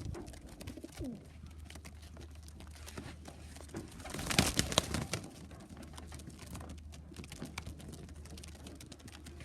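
Loft pigeons cooing in low, falling calls, with a louder burst of noise about four seconds in.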